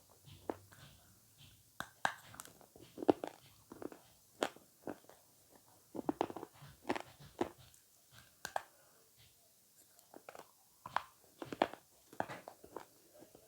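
Avocado being bitten and chewed close to the microphone: short bite and chewing sounds coming at an uneven pace, several in a second at times, with short pauses between.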